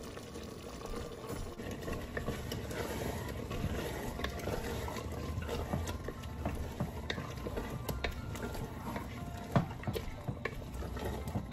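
Wooden spatula stirring thick curry in a metal pot: wet scraping and small knocks against the pot, over a steady simmer.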